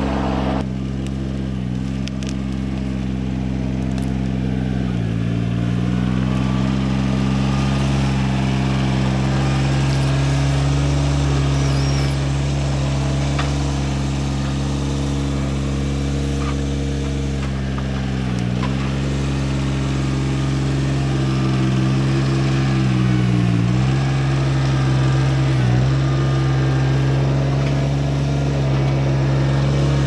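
Compact John Deere tractor's diesel engine running steadily under work, its speed dipping briefly a few times, about five seconds in, around eighteen seconds and twice near the end.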